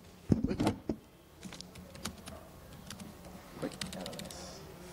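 Laptop keyboard keystrokes, a few scattered clicks as a short shell command is typed, after a brief louder muffled sound about half a second in.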